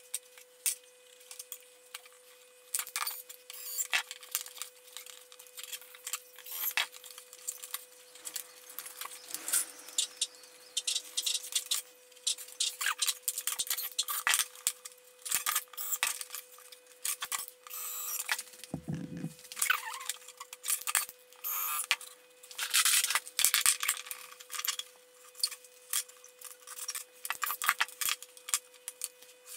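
Pencil scratching on a wooden board and a flexible steel ruler clicking and rattling against the wood and workbench as a curve is marked out, in many short irregular scrapes and taps. A faint steady hum runs underneath, and a dull thump comes a little past the middle.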